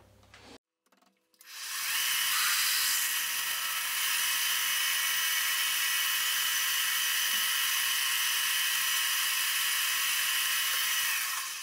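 Small metal lathe running steadily while the centre hole of a small gear is opened up to 8 mm, a steady high hiss with faint whining tones. It starts about a second and a half in and fades out near the end.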